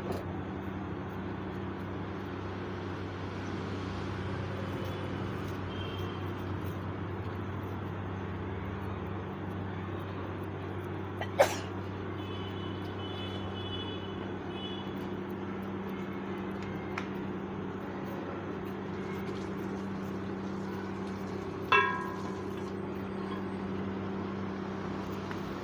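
A steady low hum throughout, with two sharp knocks, one near the middle and a smaller one about ten seconds later.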